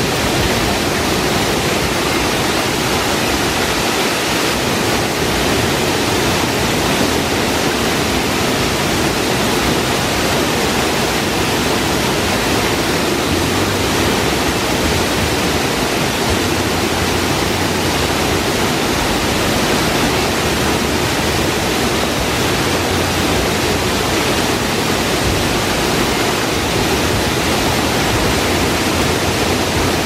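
Swollen mountain stream rushing past and spilling over a small weir: a loud, steady, unbroken roar of water.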